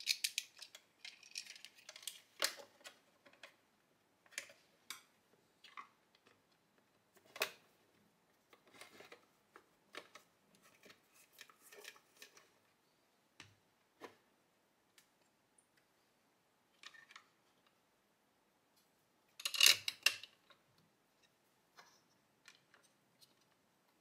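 Scattered light clicks and taps of plastic parts being handled as a replacement blower fan is fitted into an ultrasonic humidifier's housing, with a louder brief clatter near the end.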